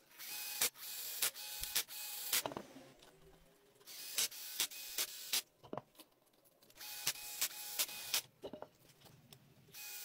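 Cordless drill with a socket spinning the wheel bolts on a Mercedes 280E alloy wheel, in several separate runs of motor whine with a regular click about twice a second, and short pauses between bolts.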